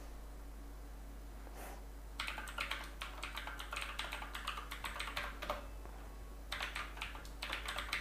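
Typing on a computer keyboard: a quick run of keystrokes starting about two seconds in, a pause after the middle, then another run near the end.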